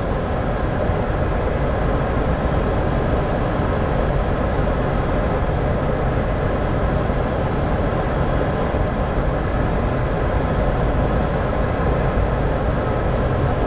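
Steady rush of airflow and engine noise heard inside a Boeing 737-800's flight deck on short final approach, even in level throughout with faint steady tones under the hiss.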